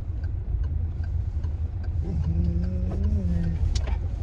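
Car driving, heard from inside the cabin: a steady low road and engine rumble. A faint regular ticking comes about twice a second, and a short low hum sounds about halfway through. A sharp click comes near the end.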